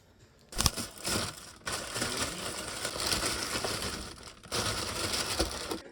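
Close, loud crinkling and crushing, starting about half a second in and going on in three long stretches with short breaks between them.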